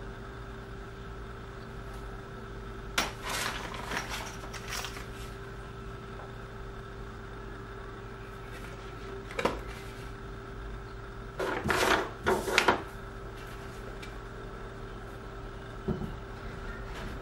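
Hands handling plastic packaging and skateboard parts on a desk: a few bursts of rustling, the loudest a little past the middle, and a light knock near the end as a board is set down, over a steady electrical hum.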